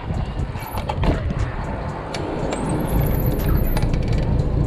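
Mountain bike riding over a city street, heard from a handlebar-mounted action camera: wind rumble and road noise with frequent rattling clicks from the bike, and a brief high squeal about three seconds in.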